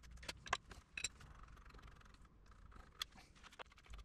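A handful of faint, scattered metal clicks and clinks from a wrench working the hydraulic hose fittings on a trencher's hydraulic motor.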